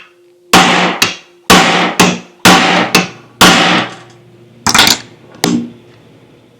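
Hammer striking a punch to drive the lever pin out of a Carter dual action fuel pump body: about six sharp metal-on-metal blows roughly a second apart, each ringing briefly, with lighter knocks in between.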